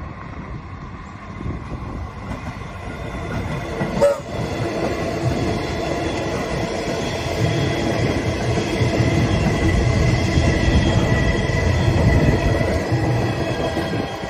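Comeng suburban electric train running past, with a rumble of wheels on the track and a motor whine that grow louder as it comes close and are loudest near the end. There is a short sharp sound about four seconds in.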